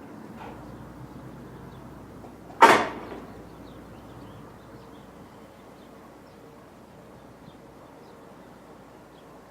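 A single sharp bang about two and a half seconds in, dying away within half a second, over a low, steady background hum.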